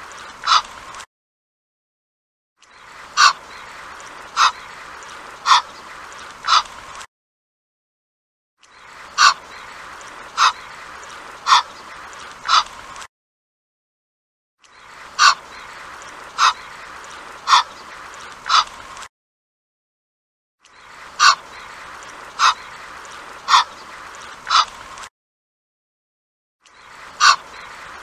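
Egyptian goose calling: sets of four short, harsh honks about a second apart, each set separated from the next by a brief silence, repeating about every six seconds over a light steady hiss.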